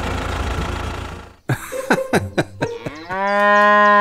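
A steady low motor rumble fades out about a second and a half in. A few short clicks follow, then a cow's single long moo fills the last second, rising, holding and dropping off at the end. The moo is the loudest sound.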